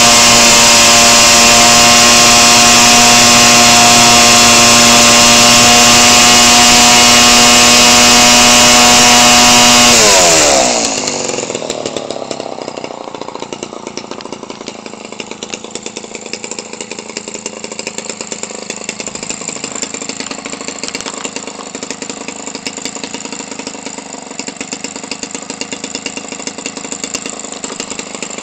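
Homelite 25cc two-stroke engine, converted for an RC airplane and swinging an 18x6 propeller, running steadily at full throttle. About ten seconds in it is throttled back, its pitch falling, and it settles into a steady, even idle for the rest. It runs with its stock carburetor dialed in.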